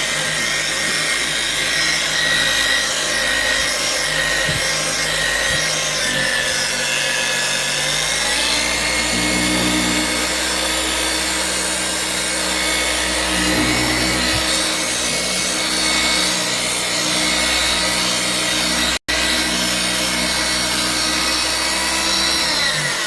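6-inch orbital polisher running steadily, buffing polishing compound on a plastic headlight lens. Its pitch shifts about a third of the way in as the load on the pad changes, and the sound drops out for an instant near the end.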